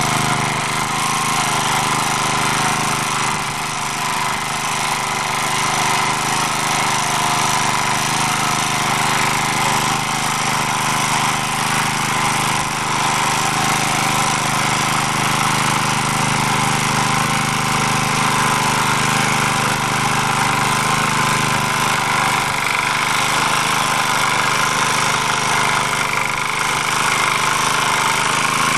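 MD3 walk-behind tractor's engine running steadily while its rotary tiller works the soil in first gear.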